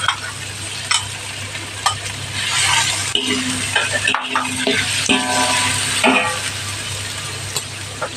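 Dried anchovies frying in hot oil with garlic and dried chilies, with a steady sizzle, while a spatula stirs and knocks against the pan every second or so. A low steady hum runs underneath.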